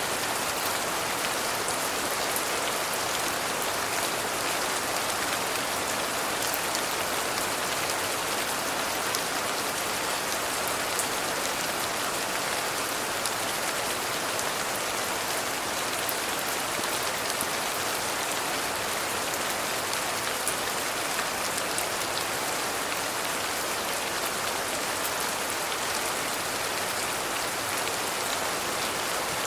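Steady, even rainfall with the fine ticks of individual drops striking a surface.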